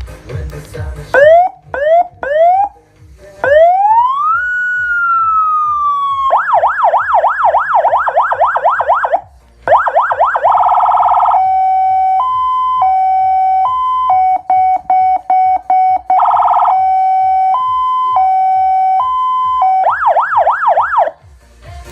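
Electronic emergency-vehicle siren running through its tones. It gives three short rising whoops, then one slow wail that rises and falls, then a fast yelp. After that comes a two-tone hi-lo alternation with stuttered notes, and the fast yelp returns near the end. A low rhythmic beat runs underneath.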